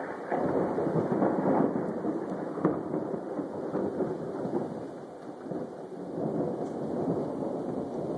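Thunder rumbling through steady rain in a thunderstorm. The rumble is loudest in the first few seconds, eases around the middle and builds again near the end.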